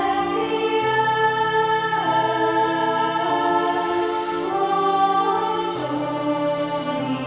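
Senior girls' choir singing slow, held notes in several parts over a backing track.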